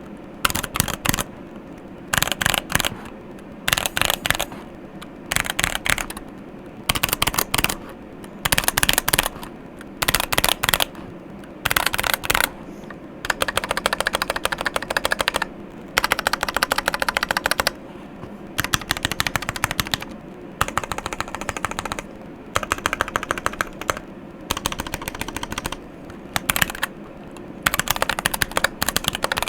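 Keychron Q8 mechanical keyboard with lubed Gateron Black linear switches, an aluminium plate and PBT keycaps, being typed on in fast bursts of keystrokes. The bursts are short and about a second apart at first, then become longer runs of typing.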